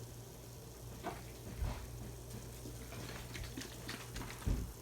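Faint kitchen handling sounds of pans and utensils while cooking: a few light clicks and knocks over a steady low hum, with a duller thump near the end.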